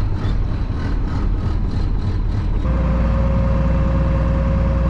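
Old farm tractor's engine running with a regular clatter; a little under three seconds in the engine note gets heavier and a steady high whine from the two-speed transmission sets in. The owner hears the whine in first, third and reverse and wants the tractor split to check the two-speed.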